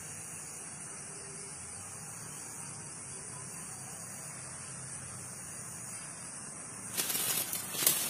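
A steady high hiss, then about seven seconds in, loud crackling and rustling of footsteps and movement through dry grass and leaf litter.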